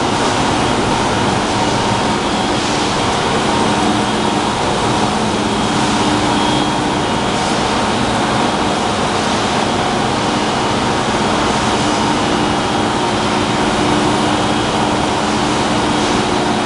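An engine running steadily at an even speed, a constant mechanical noise with a steady hum.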